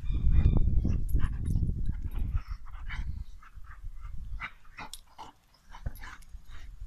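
A dog rolling on its back in the grass, making short snuffling and whimpering noises. A low rumble runs under the first two and a half seconds.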